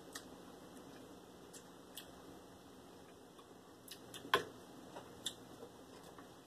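Quiet room tone with a few faint, short clicks, the loudest about four seconds in.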